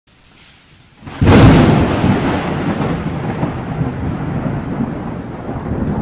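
Thunderclap sound effect: a sudden loud crack about a second in, then a long rumble that slowly dies away.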